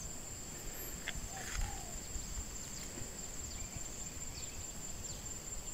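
Steady high-pitched insect drone, with a few faint clicks and rustles.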